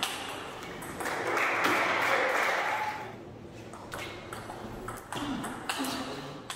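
Table tennis ball clicking sharply off bats and table in a rally, the hits about half a second apart. About a second in, a louder stretch of rushing noise lasts about two seconds.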